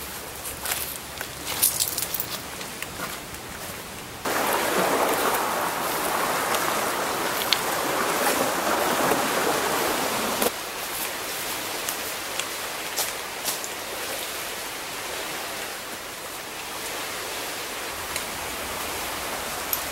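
Boots crunching on a shell-strewn beach in the first couple of seconds, over a steady rushing noise. The rushing grows louder from about four seconds in and drops back at about ten seconds.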